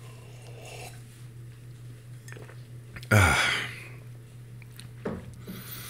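A person's short, loud voiced exhalation about three seconds in, with a fainter one near the end, over a steady low electrical hum.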